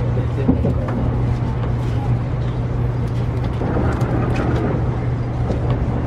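Cabin noise inside a moving 700 series Shinkansen car: a steady low hum over an even rushing noise, with faint voices of other passengers in the background.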